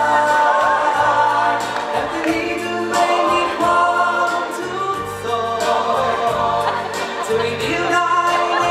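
A musical-theatre song sung by several voices together over instrumental backing, with a bass line that steps from note to note.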